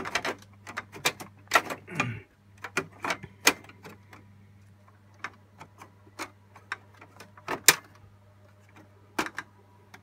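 Plastic clicks and knocks of a black plastic fan and memory shroud being handled and snapped back into an open HP Z620 workstation case. The clicks come thick and fast for the first few seconds, then more sparsely, with one sharp snap past the middle, over a steady low hum.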